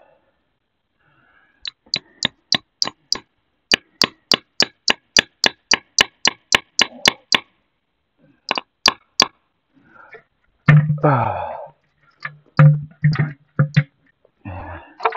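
Sharp, evenly spaced knocks, about four a second for several seconds, then a short pause and three more. Near the end a louder stretch with a low repeated note starts, the beginning of guitar-like music.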